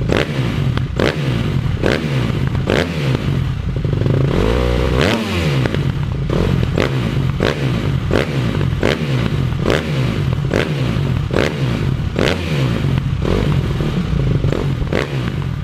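Motorcycle engine running, with a sharp knock repeating about every 0.8 seconds and one rise and fall in engine pitch about four seconds in.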